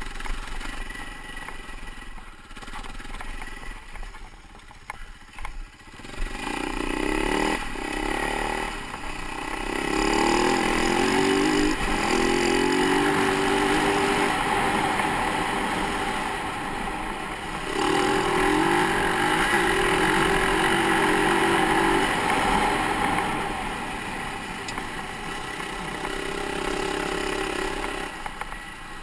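Husaberg FE450 dirt bike's single-cylinder four-stroke engine on a trail. It is quiet at first, then about six seconds in it pulls away, revving up and shifting through the gears several times. It stays at high revs for long stretches and eases off near the end.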